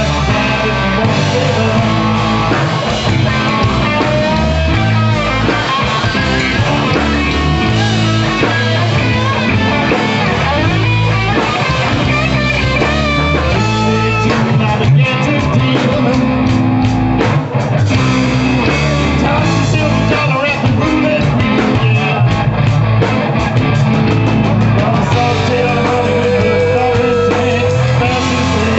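Live rock band playing a song: electric guitar, bass guitar, acoustic guitar and drum kit, played through amplifiers.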